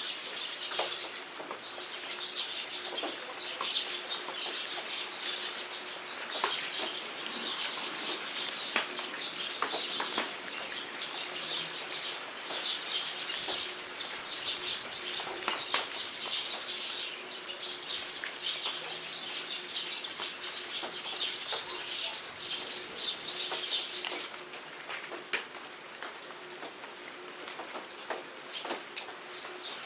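Rain pattering steadily, with small songbirds chirping and twittering busily over it. The bird chatter thins out near the end.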